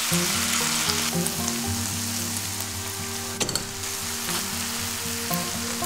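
Cabbage and sauce sizzling in a nonstick frying pan while it is stirred with a spatula. The sizzle eases a little about a second in, and there is a brief knock about halfway through, under soft background music.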